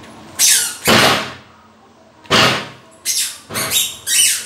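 A bird squawking: about seven loud, harsh calls, a few spaced out at first and then coming in quicker succession near the end.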